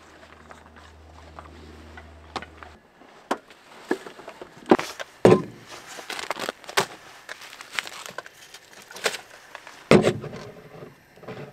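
Knocks and clatter of food items and a bottle being set down on a hard fold-down tailgate shelf, with plastic and paper packaging crinkling between them. A faint low hum stops about three seconds in.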